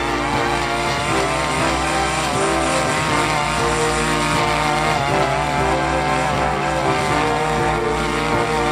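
Brush cutter's small engine running steadily at high speed, its shredder blade mowing through weeds.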